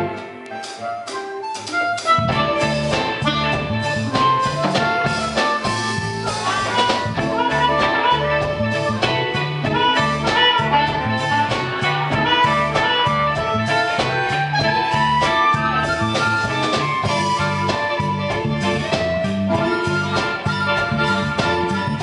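Live blues band playing: amplified harmonica over electric guitar, bass and drums. The bass drops out for about the first two seconds, then the full band comes back in.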